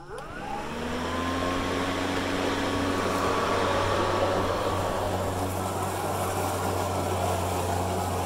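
Kobalt 80V cordless electric lawn mower starting up, its motor and blade spinning up with a quick rising whine. It then runs steadily with a low hum while cutting grass.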